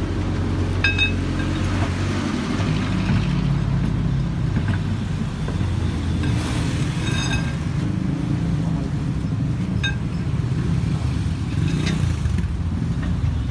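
Large truck engine idling steadily with a low rumble. A few light metallic clinks of tools on the wheel come about a second in, around the middle, and twice in the last few seconds.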